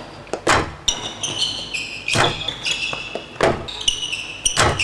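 Real tennis rally: the solid ball struck by rackets and rebounding off the court's walls and floor, four sharp knocks about a second apart. High squeaks of shoes on the court floor come between the shots, all in the echo of the walled court.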